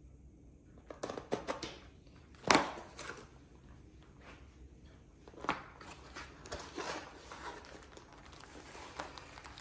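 A long cardboard shipping box being opened by hand: cardboard scraping and packing rustling, with a sharp snap about two and a half seconds in and a smaller one about five and a half seconds in.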